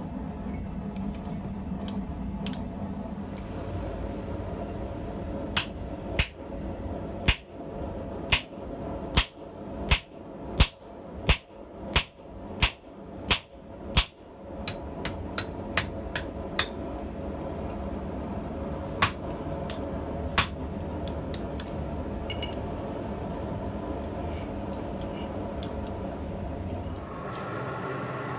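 Hammer striking a hand-held punch driven into a medium-carbon steel hammer blank on an anvil block, punching the eye: about a dozen sharp strikes at a steady pace, then a few lighter taps, over a steady low hum.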